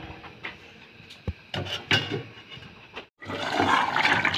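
A few light clicks and knocks, then, after a short break, a spiced curry in a steel kadai boiling hard: a dense, crackling bubbling.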